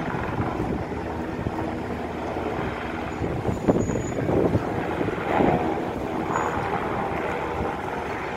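A steady engine drone, with wind buffeting the microphone several times in the middle.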